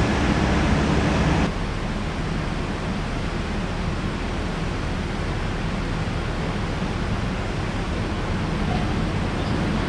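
Steady, even rushing noise of outdoor air, with no distinct events. About a second and a half in it drops slightly and loses a low hum, at a cut in the footage.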